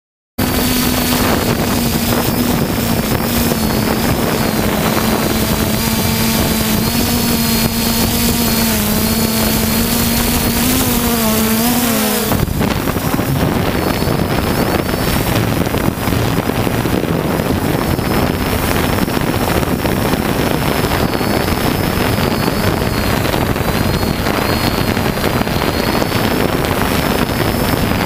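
Multirotor drone's motors and propellers whining steadily, heard through the onboard camera's microphone with wind rushing over it. A lower hum bends down and drops away about twelve seconds in, while the high whine carries on.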